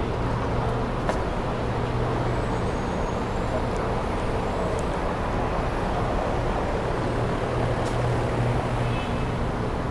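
City street traffic noise: a steady rumble of passing and idling vehicles, with a constant low engine hum and a couple of faint clicks.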